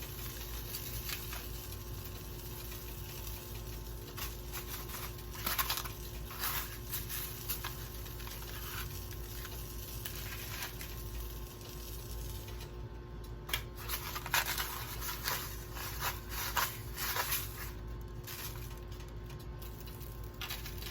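Scattered soft taps, clicks and rustles of food and utensils being handled in a kitchen, over a steady low hum.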